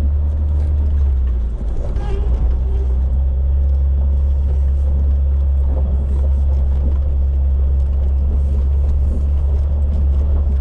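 Jeep TJ's engine running with a steady low rumble as it creeps through deep snow.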